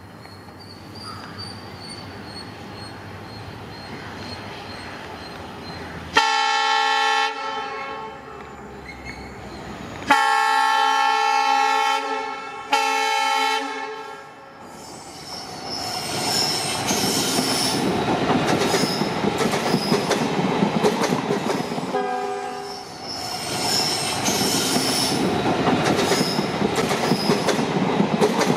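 A WDP4D diesel-electric locomotive sounds its horn in long blasts as it approaches, starting about six seconds in and lasting until about fourteen seconds in. It then passes with its train of coaches, the wheels clattering rhythmically over the rail joints, and there is one more short horn sound partway through the pass.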